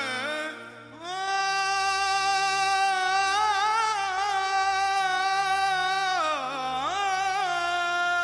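Background music: a single sung voice holds one long note with vibrato from about a second in, then slides down and back up near the end, over a low bass line.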